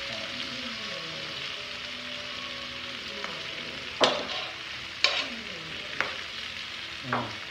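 Sisig sizzling steadily on a hot cast-iron sizzling plate, with a metal spoon clinking against the plates four times, about a second apart, in the second half.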